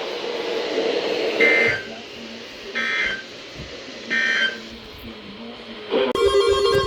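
Emergency Alert System end-of-message data signal: three short bursts of warbling two-tone digital data, each about half a second long and about a second and a half apart, marking the close of the broadcast warning. About six seconds in, a louder steady tone starts abruptly.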